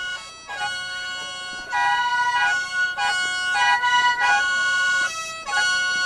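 Hmong qeej (bamboo free-reed mouth organ) playing sustained chords of several reedy tones at once, the notes shifting about every half second. The sound breaks briefly near the start and dips again about five seconds in.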